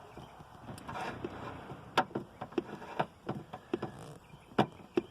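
A hand pump being worked, giving a series of short, sharp clicks and knocks at an uneven pace of about one or two a second as it pushes cigarette smoke into the engine's vacuum system to find a leak.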